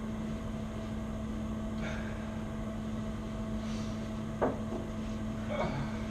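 Steady low hum with a faint higher tone above it, broken by a few light clicks and knocks; the sharpest knock comes about four and a half seconds in.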